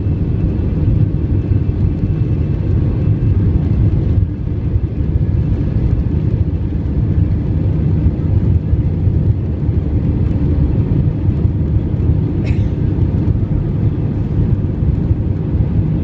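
Cabin noise of an Airbus A320 on its takeoff roll: the jet engines at takeoff thrust and the runway rumble make a loud, steady, deep roar.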